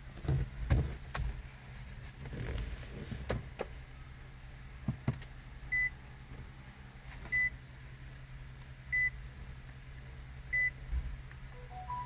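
An electronic beep sounds four times, each short and at the same high pitch, evenly spaced about a second and a half apart. Handling knocks and rustles come before it, in the first second or so.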